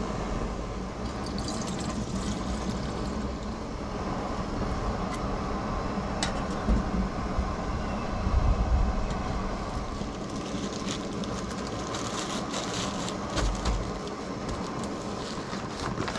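Water being poured out for cooking, a steady trickling and filling, with a few small clicks of handling near the end.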